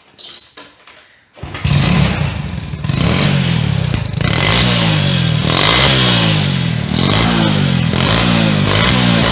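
Yamaha Crypton 110 cc single-cylinder four-stroke motorcycle engine with a twin exhaust, starting about a second and a half in and then revved again and again, the pitch rising and falling roughly once a second. Both exhaust pipes are blowing.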